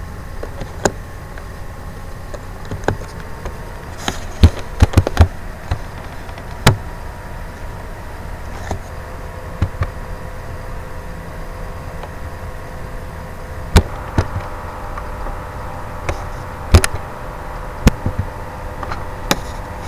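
Scattered sharp taps at irregular intervals, a quick run of five about four to five seconds in, over a steady background hum with a faint whine.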